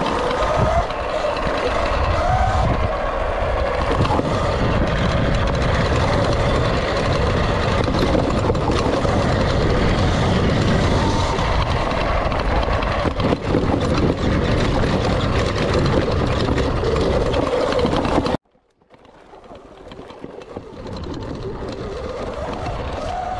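Sur-Ron Light Bee electric dirt bike under way on a dirt trail: the electric drivetrain's whine rising and falling with speed over heavy wind and trail rumble. About three-quarters of the way through, the sound cuts out abruptly, then fades back in.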